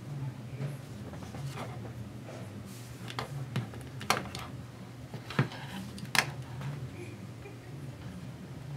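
Sharp plastic clicks and handling noises from a ski goggle's interchangeable outrigger hinge being fitted onto the goggle frame. The loudest clicks come about four, five and a half and six seconds in, over a low steady hum.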